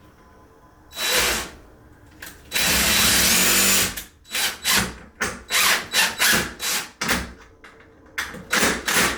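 Power drill driving a large wood screw through a door-installation clip into a wooden door frame: a short burst, a longer steady run, then many short trigger pulses as the screw is worked home.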